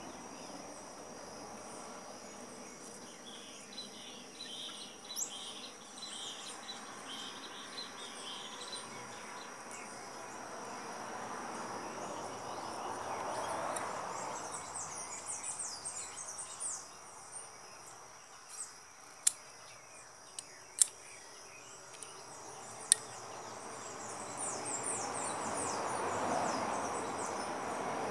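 Insects and birds chirping over a steady high insect drone. About two-thirds of the way through come three sharp snips of pruning shears cutting cacao budwood stems.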